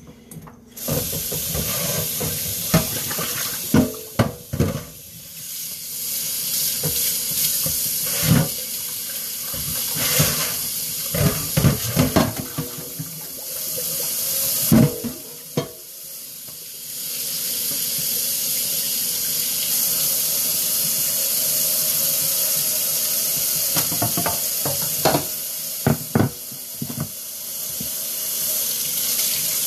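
Kitchen tap running steadily into a sink, with scattered clunks and knocks of things being handled. The flow eases off for a moment about halfway through, then runs steady again.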